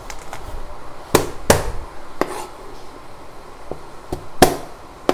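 Chef's knife on a plastic cutting board, crushing and chopping garlic cloves: a handful of irregular sharp knocks, the loudest about four and a half seconds in.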